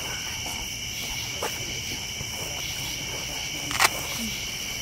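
Steady chorus of night insects, a few high tones held without a break. There are a few faint crackles from the wood campfire, and one sharp snap near the end.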